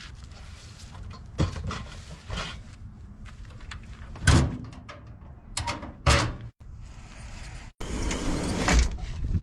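Knocks, thumps and clatter of gear and a solar panel being packed away, with loud thumps about four and six seconds in and a rougher, longer scraping rustle near the end.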